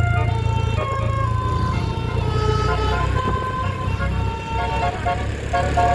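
Tour bus 'telolet' musical air horns playing a tune of held notes that step up and down in pitch, breaking into short quick notes near the end, over the low rumble of the bus engine.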